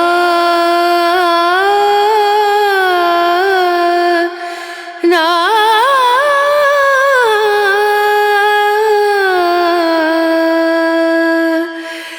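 Background music: a sung vocal line of long held notes with ornamented pitch bends, in two phrases with a short break about four seconds in.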